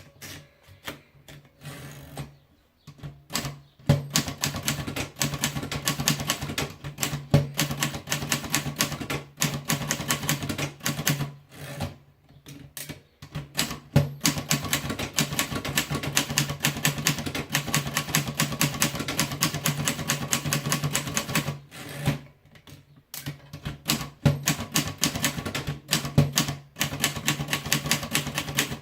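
Everest Model 90 typewriter being typed on fast, its keys and typebars clattering in long runs of rapid strokes. The runs break off briefly a few times.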